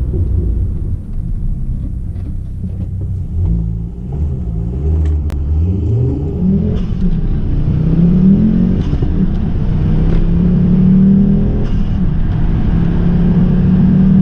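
Tuned Ford Focus ST's turbocharged 2.5-litre five-cylinder engine pulling hard, its pitch climbing and dropping back several times as it goes up through the gears, then holding a steady higher note.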